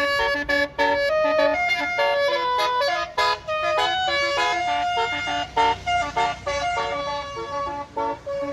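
Bus telolet horn (Basuri multi-trumpet air horn) playing a fast melody of short, changing notes, with a bus engine rumbling underneath.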